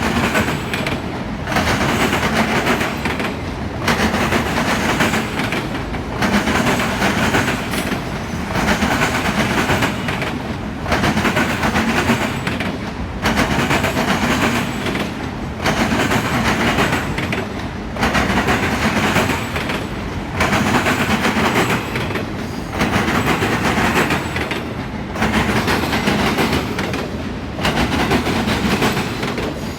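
Freight cars of a CSX auto rack train rolling past, wheels clacking on the rails. The loud rattle dips briefly in a steady rhythm about every two and a half seconds.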